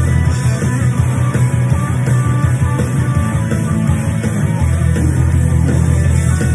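Electric guitar playing a hard-rock instrumental line over a full band backing with bass and drums.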